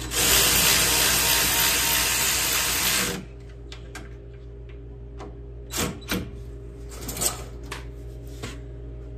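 Handheld power driver running for about three seconds, then cutting off, as it tightens the fasteners on the small engine's air cleaner base. A few light clicks and knocks of parts being handled follow.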